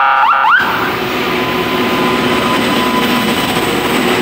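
Loram rail grinder train passing close. Its warning siren wails up and down and cuts off about half a second in, giving way to a loud, steady rushing noise from the passing grinder, with a few faint steady hums in it.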